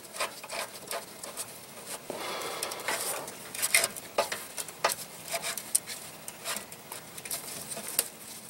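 A stainless steel butt-joint exhaust band clamp clinking and scraping as it is worked into position by hand on an exhaust pipe: scattered light metallic clicks, with a denser patch of scraping about two seconds in.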